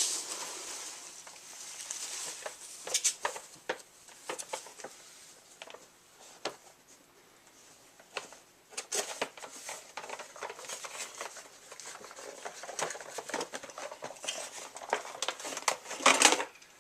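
Packaging being handled as a boxed model car is unpacked: rustling and crinkling with scattered clicks and taps, a quiet stretch in the middle and a louder crinkle near the end.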